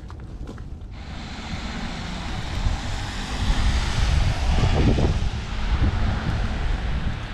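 Car tyres hissing on a wet, slushy street, swelling over a few seconds, with wind buffeting the microphone.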